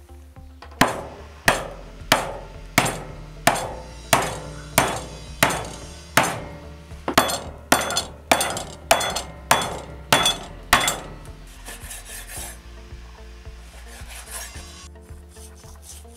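A hatchet chopping through lamb ribs and backbone on a wooden board: a steady run of sharp chops, about one and a half a second, for some ten seconds. Near the end a knife scrapes and saws through the meat.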